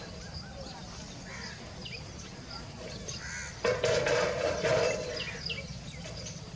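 Outdoor ambience with small birds chirping and calling throughout. A louder, harsh sound comes in for about a second and a half a little past the middle.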